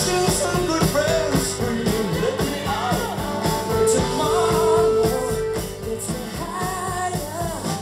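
Rock song with a singing voice, guitar and a steady drum beat, played loud through a Riva Festival wireless speaker; the sung line holds one long note about four seconds in.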